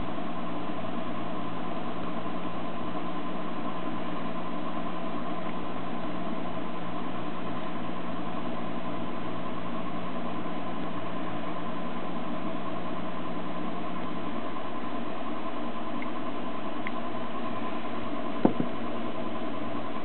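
Steady machine hum with a constant thin whine; its lower tone drops out a few seconds before the end. A single sharp click comes near the end.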